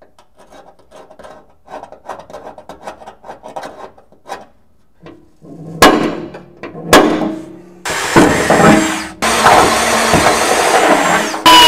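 Small clicks of handling parts, then two sharp knocks about six and seven seconds in, followed by an electric drill running in two long bursts, drilling holes in the car's rear firewall for bulkhead connectors.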